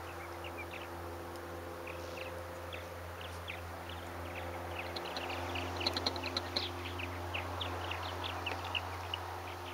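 Many small birds chirping in short, quick calls, more densely in the second half, over a steady low engine drone.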